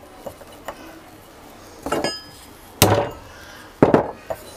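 A hammer lightly tapping a water-pump impeller onto its motor shaft: about three sharp metallic strikes roughly a second apart, each with a short ring.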